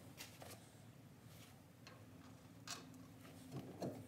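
Faint, sparse clicks and light taps of metal parts being handled at a Jeep's front wheel hub as the bearing is seated, with a few louder knocks near the end.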